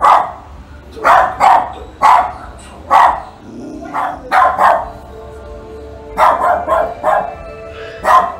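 Dog barking repeatedly, in quick runs of two to four sharp barks, over background music.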